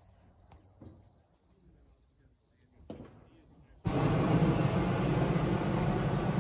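Hot-air balloon's propane burner firing in one loud blast of about three seconds, starting about four seconds in: a steady rushing hiss. Before it, a faint high chirp repeats about three times a second.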